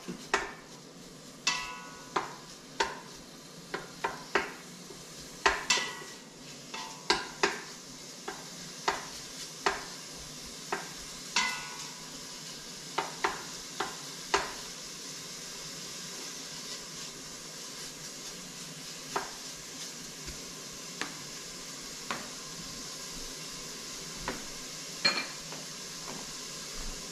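Chopped raw bacon sizzling as it renders its fat in an Instant Pot on the sauté setting, with a wooden spoon knocking and scraping against the pot as it is stirred. The stirring knocks come often in the first half and then thin out, leaving a steady sizzle.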